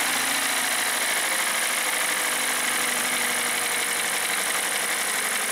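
A 2016 Hyundai Tucson's 2-litre four-cylinder engine idling steadily with the knock the owner complained of, which the mechanic says sounds very much like piston slap.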